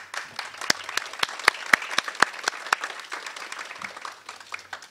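Small audience applauding, individual claps distinct, thinning out and dying away near the end.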